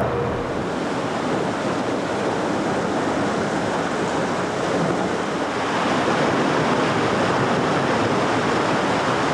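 Concrete grout pouring from a ready-mix truck's chute down into a sewer shaft: a steady rushing noise.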